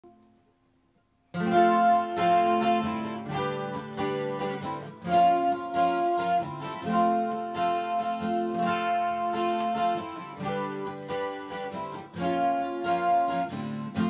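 Gibson acoustic guitar with a capo, strummed in full chords with several chord changes. It comes in about a second in, after near silence.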